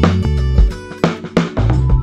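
Background music with a steady beat on drum kit, over bass and guitar.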